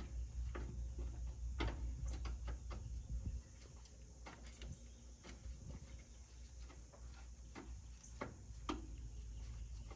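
Scattered light metallic clicks and scrapes of a bolt being worked by hand into a van's lower shock absorber mount, the bolt refusing to start in its threads. A low steady rumble underneath drops away about three seconds in.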